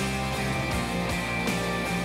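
Instrumental band music with a steady beat and a strong bass line.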